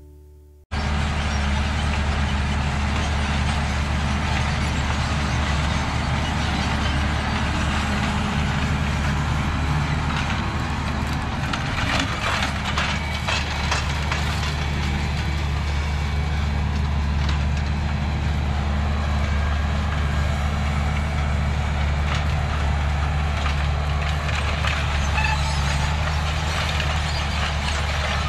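A vehicle engine running at a steady speed: a constant low drone that cuts in abruptly about a second in, with a few brief clicks or rattles near the middle.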